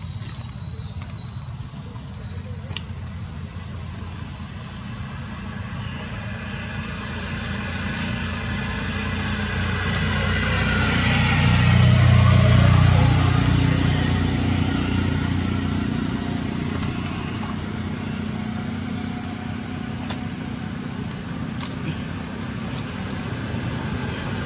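A steady, thin, high insect drone, with an engine passing by: a low hum that swells to its loudest about halfway through and then fades away.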